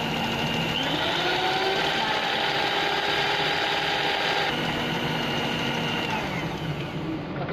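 Electric stand mixer motor running with its beaters in cake batter, a steady whine. The pitch steps up as the speed is turned up about a second in, drops back about halfway through, then slides down as the mixer winds down near the end.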